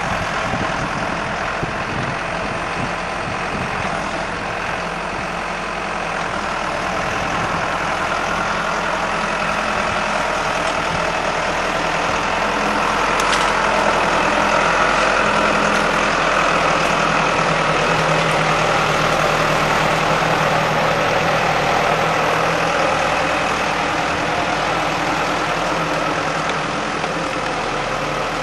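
Valmet 6400 tractor's diesel engine running steadily while it tows a loaded log trailer, a little louder in the middle. One sharp click comes about halfway through.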